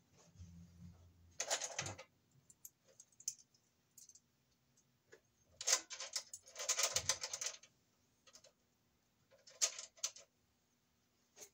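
Bursts of metallic clicking and rattling as a Romex cable connector and cable are worked into a knockout at the bottom of a metal breaker panel enclosure: a short burst about a second and a half in, a longer one in the middle and a brief one near the end.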